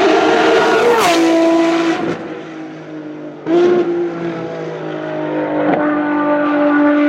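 Ferrari racing-car engine at high revs, running a steady multi-tone note. Its pitch drops abruptly about a second in and it goes quieter, then it comes back loud about three and a half seconds in and climbs slowly towards the end.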